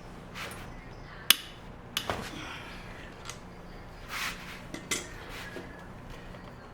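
Metal tools clinking and knocking against metal parts, a few separate sharp strikes with short ringing tails, the loudest about a second in.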